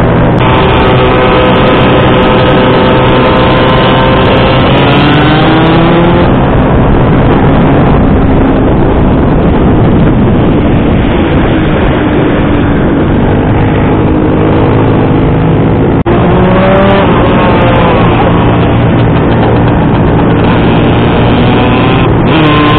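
Heavy wind rush on the microphone of a moving scooter, over its small engine running at road speed. The engine note glides up and back down a few times, and there is one sharp click about sixteen seconds in.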